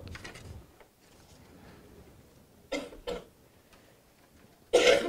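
Quiet room tone in a pause in a talk, with a few brief soft rustling noises: two close together about three seconds in and a slightly louder one near the end.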